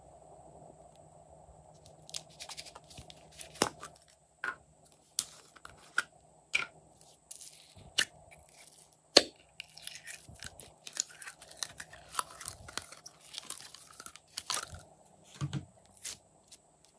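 Glossy slime squeezed out of a plastic container and squished between fingers: an irregular string of sticky clicks and pops, starting about two seconds in, with one sharper pop a little past the middle.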